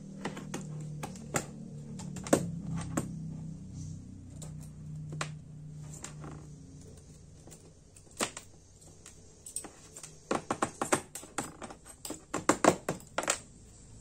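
Small metal clicks and taps from a balisong butterfly knife being taken apart with a screwdriver: its pivot screws, handles and blade knock on each other and the cutting mat. There is a quick run of clicks near the end.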